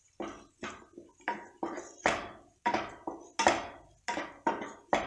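A spatula scraping and knocking against a nonstick kadai while boiled potato cubes are stirred through sautéed vegetables, in repeated strokes about two a second.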